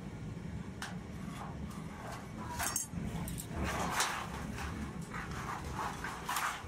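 Hand tin snips cutting thin galvanized sheet steel: a run of short cutting strokes, about three a second, starting about halfway through. Before them come a few sharp metallic clicks as the tools and sheet are handled.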